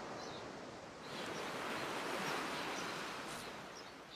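Ocean surf washing onto a beach. One wave swells up about a second in and slowly fades toward the end, with faint bird chirps above it.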